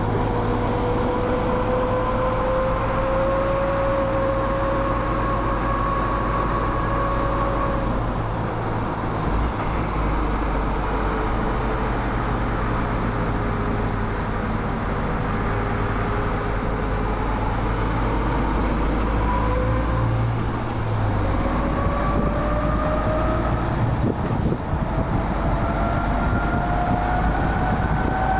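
Cab noise of a MAN TGS 35.510 truck on the move: a steady low engine and road rumble with a whine that dips in the middle and then rises steadily toward the end.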